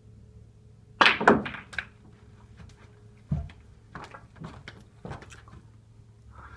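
Snooker balls clacking on the table after a cue shot: a sharp cluster of clicks about a second in, then a single heavier knock about two seconds later, followed by lighter knocks. The phone is handled and rustles near the end.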